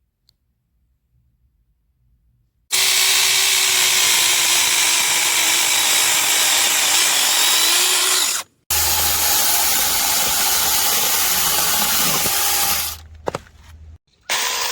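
Cordless 6-inch electric mini chainsaw running and cutting wood, in two long stretches that start and stop abruptly after about three seconds of near silence, with a brief quieter gap near the end.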